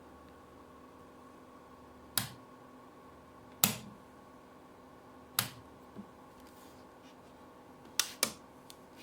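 Five sharp clicks at uneven intervals, two of them in quick succession near the end, with a softer click between, over a faint steady hum: small hard objects being handled.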